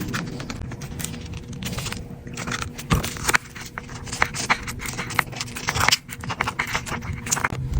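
Irregular small clicks, taps and scrapes of hand tools working on an iPad, with a sharper knock about three seconds in.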